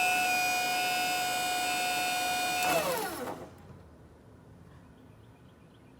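Skyjack 3219 scissor lift's electric hydraulic pump running with a steady whine, pressurising the freshly rebuilt brake cylinder as a test. About three seconds in, it shuts off and winds down, falling in pitch until it stops.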